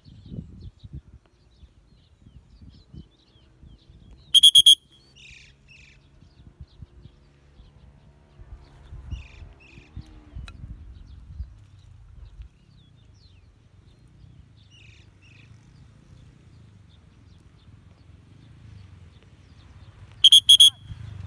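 A loud trilling whistle blown twice, each blast about half a second long and some sixteen seconds apart, with faint short bird chirps in between.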